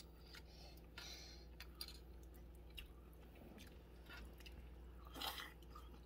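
Faint chewing and wet mouth sounds of a person eating turkey meat, with scattered small clicks. A steady low hum sits underneath.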